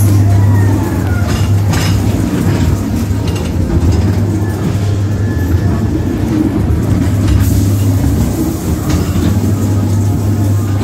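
Ghost train ride car rolling along its track, a steady low rumble with a few sharp clacks from the wheels and track joints.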